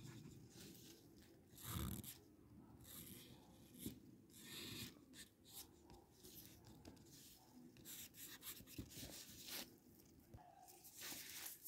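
Faint, irregular scratching of a charcoal pencil shading on paper, in short strokes with pauses between them.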